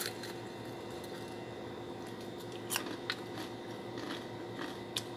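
A handful of sharp, separate crunches from biting into and chewing a piece of crispy-battered fried chicken, over a steady low hum.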